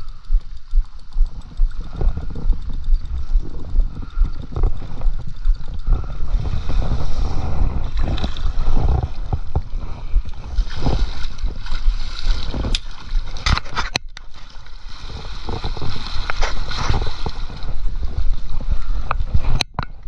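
Wind buffeting the camera microphone in a gusting low rumble, with water splashing and gurgling as a fish is netted and lifted from the river in a landing net. Several sharp clicks of net and reel handling come in the second half.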